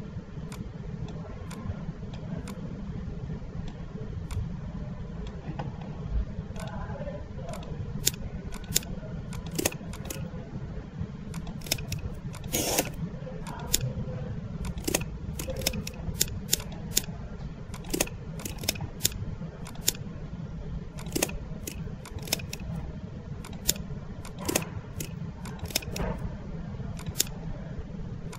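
Computer mouse clicking: short, sharp, irregular clicks that come thick and fast after the first several seconds, over a steady low hum.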